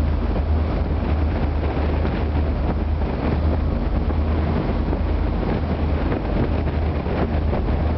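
Tugboat's engines running with a steady deep drone, mixed with wind buffeting the microphone and the wash of rough sea.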